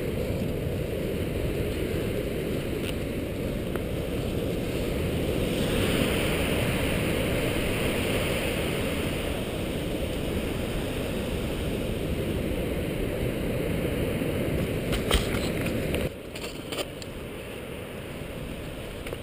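Wind buffeting the microphone as a steady low noise, with sea surf below mixed in. Around fifteen to seventeen seconds in come a few sharp knocks, and the noise suddenly drops to a lower level.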